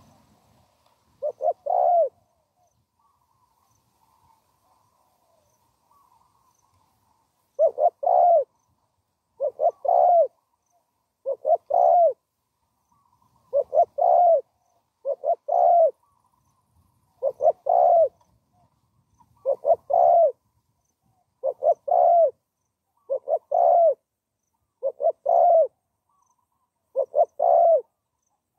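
Spotted dove cooing, about a dozen calls, each a couple of quick notes and a longer one. There is one call near the start, then several seconds of quiet, then a call roughly every two seconds.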